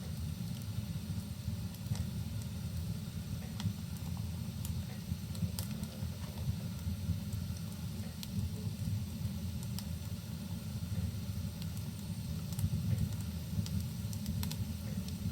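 Rain and crackling fireplace ambience: a steady low rumble under scattered sharp crackles and pops from burning wood.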